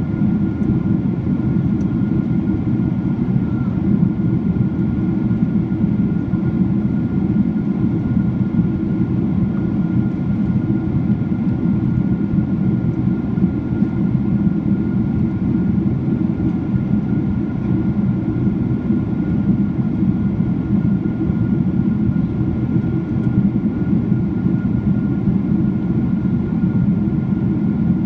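Jet airliner cabin noise in flight: the steady, even roar of the twin jet engines and airflow heard inside the cabin from a seat over the wing, with a faint steady whine above it.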